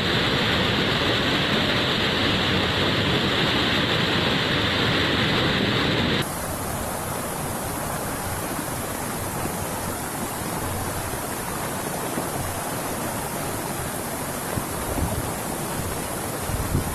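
Steady rush of fast-flowing floodwater. About six seconds in the sound changes abruptly to a quieter, more even hiss of water.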